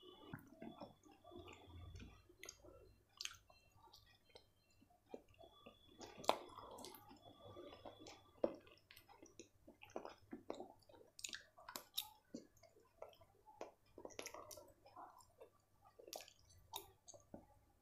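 Close-miked chewing of chilli paneer and rice: wet, soft mouth sounds with many small clicks and smacks, and a metal fork tapping and scraping the plate, the loudest two taps about six and eight seconds in.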